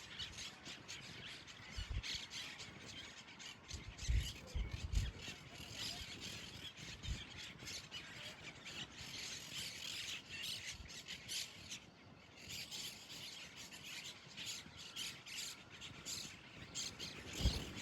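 Birds squawking and calling over and over, with a few short low thumps, the loudest near the end.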